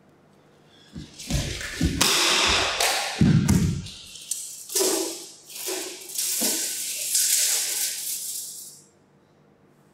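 Several low thumps about a second in, with a harsh hissing noise over them, then a few shorter bursts and a longer hiss that stops suddenly near the end.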